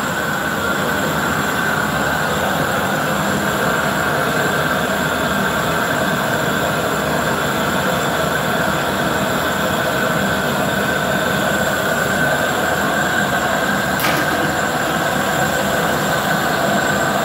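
Gas-fired glory hole burner giving a loud, steady rushing roar as a glass vase on the punty is reheated, heat being driven into its base so it won't crack when knocked off the pipe. One brief click sounds about 14 seconds in.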